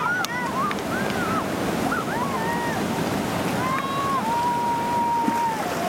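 Steady rushing of a whitewater river rapid, with voices of people in a raft calling out over it, one long drawn-out call near the end.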